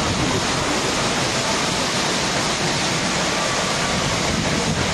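Heavy rain pouring down onto a flooded street, an unbroken rushing hiss of falling and running water.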